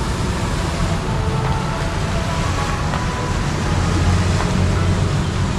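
Distant city road traffic heard from high up: a steady low rumble with no distinct single vehicle standing out.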